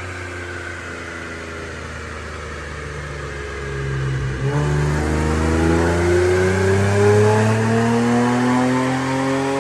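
Infiniti Q50 Red Sport's VR30DDTT twin-turbo 3.0 V6 running on a dyno through AAM Competition 3-inch resonated downpipes and resonated catback exhaust. It holds steady revs, breaks briefly about halfway in, then pulls with the revs climbing steadily and getting louder.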